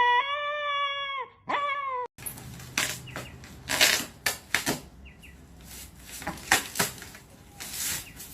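A pet's long, high whining cry, ending in a short upward glide. After a sudden cut about two seconds in come scuffling and rustling with sharp knocks and clicks.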